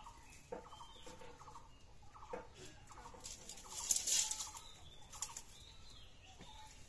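Chickens clucking in short calls every half second or so, with a louder rustle of dry sticks being handled about four seconds in.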